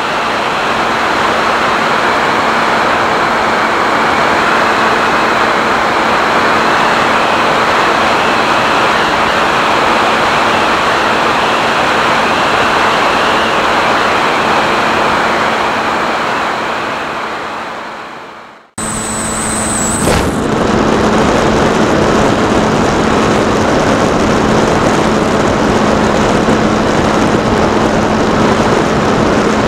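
Airflow rushing over the on-board camera microphone of a Skyhunter FPV plane in flight, with a steady hum from its electric motor and propeller. The sound fades out about 19 seconds in and cuts straight back in.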